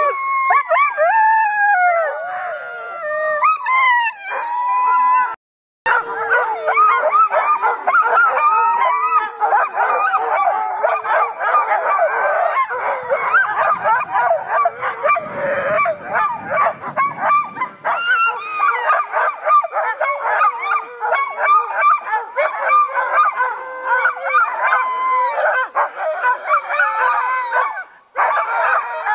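A team of harnessed sled dogs howling, then a dense, continuous chorus of barking and yipping from the whole team, the excited din of dogs eager to start running. The sound drops out briefly about five and a half seconds in.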